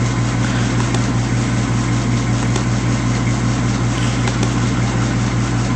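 A steady low mechanical hum with an even hiss of noise over it, unchanging throughout.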